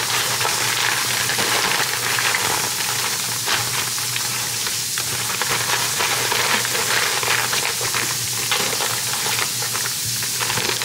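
Stiff paper seafood wrapping crinkling and rustling as it is folded and crumpled by hand, a steady run of small crackles.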